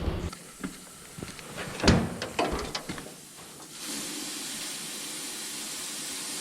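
A few scattered knocks and clicks, the loudest about two seconds in, then a steady hiss that sets in about four seconds in.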